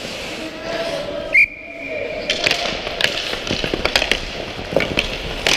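Referee's whistle giving one short, very loud blast about a second and a half in. A run of sharp clacks from sticks and puck on the ice follows.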